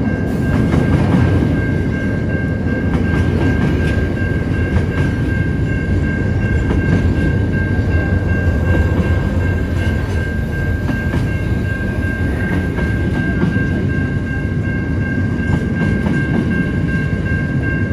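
Container wagons of a long freight train rolling past: a steady low rumble of wheels on rail with faint clicking. A level crossing warning bell rings steadily over it as a high, even tone.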